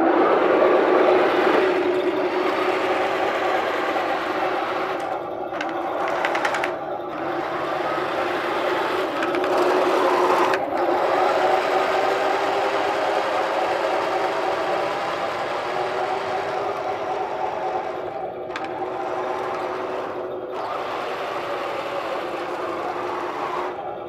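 Remote-control tank running on its Heng Long 5.3 system: the sound unit's simulated tank-engine drone mixed with the whine of the small electric drive motors. The pitch drifts up and down a little, and the sound fades slowly in the second half as the tank drives away.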